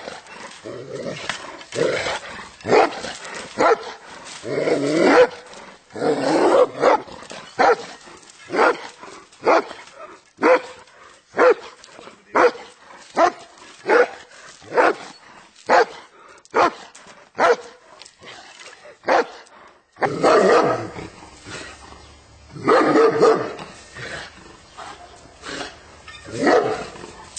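German Shepherd dog of the old East German (DDR) type barking defensively, over and over: evenly spaced single barks about one a second through the middle, with longer, denser runs of barking near the start and the end.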